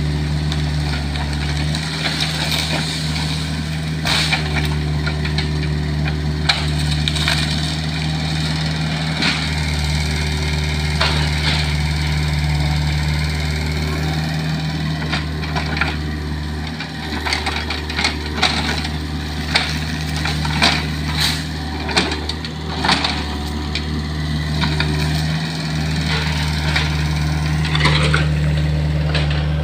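Kobelco mini excavator's diesel engine running steadily, dipping briefly now and then, with scattered knocks and clanks from the machine working.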